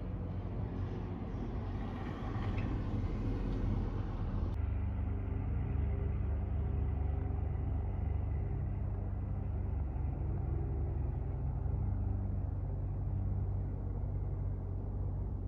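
Steady low rumble of a jet airliner flying high overhead. The sound changes abruptly about four and a half seconds in, where the recording cuts, and the rumble then runs on evenly.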